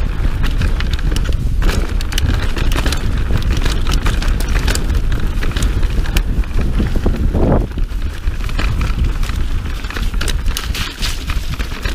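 Mountain bike ridden downhill over a dirt forest trail, heard from a camera on the bike: tyres rolling and the bike rattling with many small knocks over roots and stones, under a heavy low rumble of wind on the microphone. A brief louder rasp comes about seven and a half seconds in.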